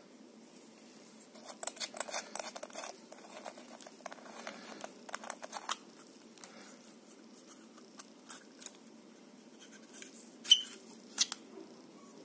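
Small aluminium tube power bank case being taken apart by hand. First a few seconds of rasping, clicking scrapes as its threaded end cap is unscrewed, then scattered light clicks as the battery holder is pulled out. Near the end comes a sharp metallic click with a brief ring, and a second click just after.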